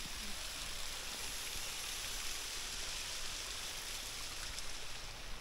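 Steady, even hiss of running water, unchanging throughout.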